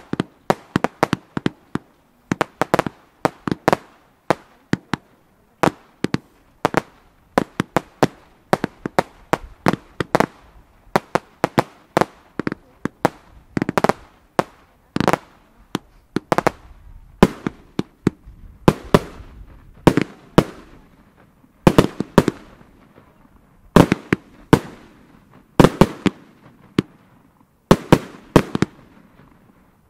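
Firework batteries firing a rapid, irregular string of sharp bangs, about two to three a second, as comet-tailed stars launch and burst.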